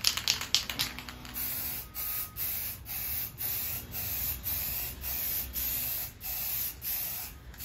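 Aerosol can of flat white spray paint hissing in about a dozen short bursts, roughly two a second, as light coats are laid on to fade out a board repair. A rapid clicking rattle fills the first second.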